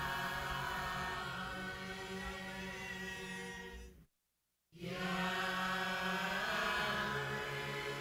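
A choir singing long, held chords. About four seconds in, the sound cuts out completely for about half a second, then the singing picks up again.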